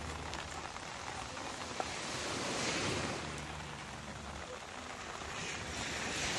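Sea surf washing on the shore, a steady hiss that swells up and fades back twice.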